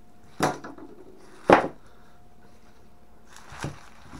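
Wooden rifle stocks of two Spanish Mauser rifles knocking on the table as they are set down and shifted side by side: two sharp knocks about a second apart, the second the loudest, and a lighter knock near the end.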